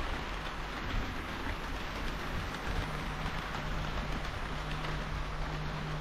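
HO scale model trains running on the layout's track: a steady rolling noise of wheels on the rails with a steady low hum underneath.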